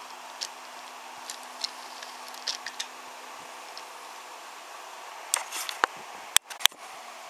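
Faint scattered clicks and knocks of a wooden toy train rolling over wooden track joints, over a steady background hum, then a short cluster of clicks and two loud sharp clicks close together near the end.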